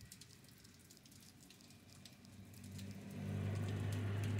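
Rain pattering with scattered drop ticks, then a car driving past on the wet road: its engine hum and tyre hiss swell from about halfway in and are loudest near the end.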